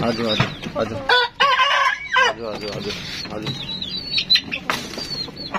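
Chickens clucking as they climb out of a wooden coop, with one long drawn-out call about a second in, then short high chirps and a couple of sharp knocks near the end.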